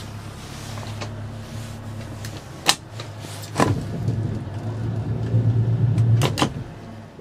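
Motorboat engine running at low revs with a steady hum, growing louder from about halfway through as the boat drives off. A few sharp clicks or knocks come on top, the loudest a little before the middle.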